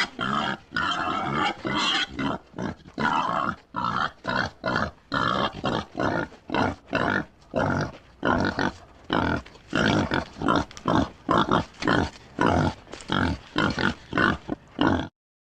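Boar grunting in a rapid series of short, rough calls, about two a second, that cuts off suddenly near the end.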